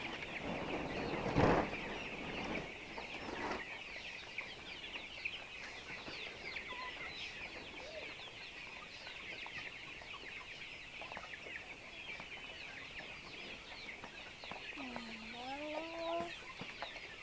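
A flock of young Giriraja chickens cheeping and chirping without pause, many short high calls overlapping. There is a single thump about a second and a half in, and near the end one bird gives a longer, lower call that rises in pitch.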